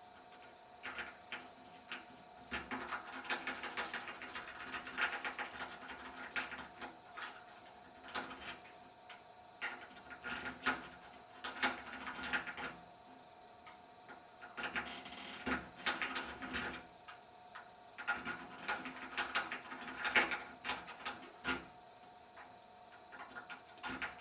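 Lock pick working inside a deadbolt's keyway: rapid metallic clicking and scraping as the pick pushes the spring-loaded pin tumblers up against the tension tool, in bursts of a few seconds with short pauses between.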